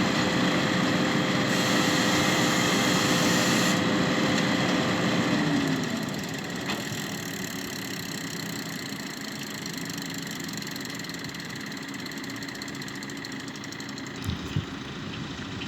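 Tractor diesel engine running steadily at working revs, then dropping back about five and a half seconds in to a lower, quieter run.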